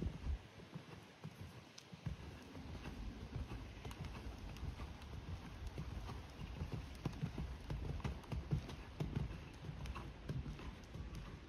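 Horse's hooves on sand arena footing: a heavy thud just after the start as it lands from a jump, then steady trotting hoofbeats.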